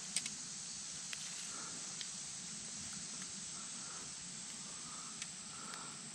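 Faint, steady high-pitched hiss of insects, with a few small clicks and rustles from hands unhooking a small largemouth bass.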